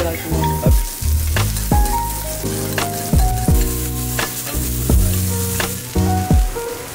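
Chopped Kobe beef sizzling on a steel teppanyaki griddle as a spatula and knife work it, with sharp clicks. Background music with a deep bass beat plays over it.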